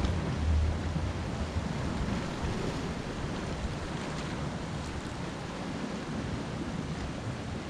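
Sea surf washing against a rocky shoreline as a steady rush. Wind buffets the microphone with low gusts in the first second or so.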